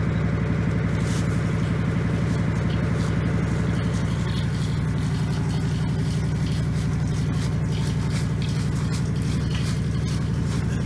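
Backhoe loader's diesel engine idling steadily, a constant low drone.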